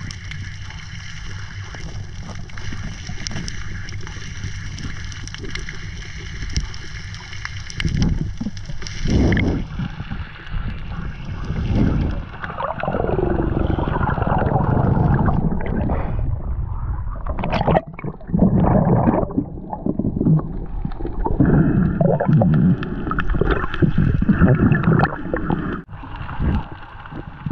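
Seawater gurgling and sloshing around the microphone, over a steady hum at first, then in louder irregular surges from about nine seconds in.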